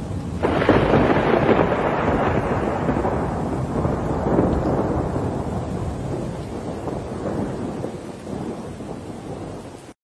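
A clap of thunder about half a second in, rumbling on and slowly fading away, over the steady noise of heavy rain.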